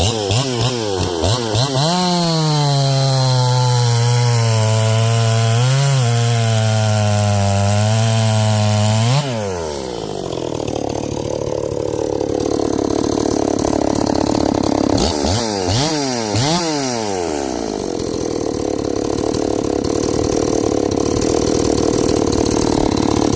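Ported Stihl 381-clone two-stroke chainsaw: blipped a few times, then held at high speed for about seven seconds. About nine seconds in the sound drops suddenly into a rougher, noisier running, with a few quick revs around the sixteen-second mark before it settles again.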